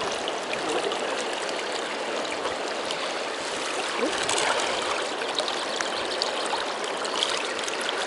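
Shallow mountain stream running steadily over a pebble and gravel bed, a constant rushing and trickling of water.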